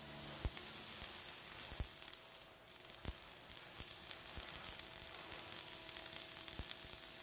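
Flux-cored arc welding on carbon steel plate: the arc gives a steady crackling sizzle, broken by a few sharp pops. A faint steady tone runs underneath.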